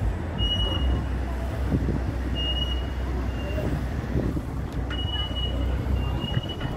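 Busy street ambience: a steady low rumble of road traffic, with a short high beep repeating every second or two.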